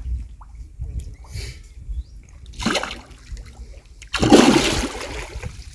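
A hooked carp splashing and thrashing at the water's surface as it is played in close to the bank: a short splash about two and a half seconds in, then a louder, longer splash about four seconds in.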